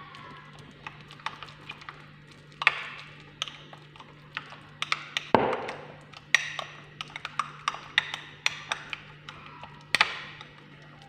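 A metal spoon stirring a thick turmeric and honey paste in a small glass bowl: irregular clinks and taps of the spoon against the glass, with the two loudest knocks about five seconds in and near the end. A steady low hum runs underneath.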